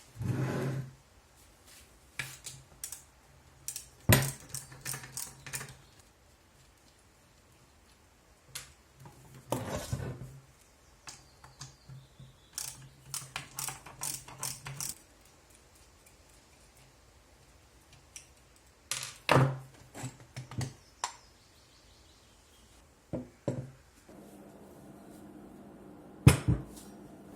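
Handling noises in a workshop: scattered knocks, clicks and clinks of parts and tools being picked up and set down, in several short clusters. A faint steady hum begins near the end.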